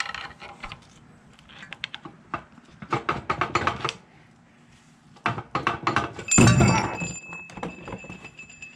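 Metal clinks and knocks as the carrier of a GM 10-bolt rear differential is pried and worked loose from its housing. A loud clunk comes about six seconds in, followed by a thin metallic ring that hangs on for a few seconds.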